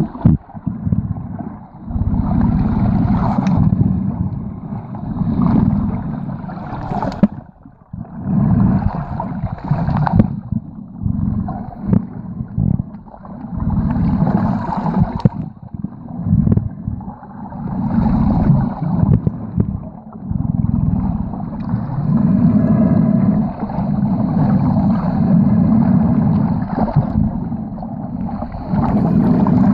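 Muffled underwater water noise picked up by a submerged camera while snorkeling: low gurgling surges a second or two long, with short lulls between.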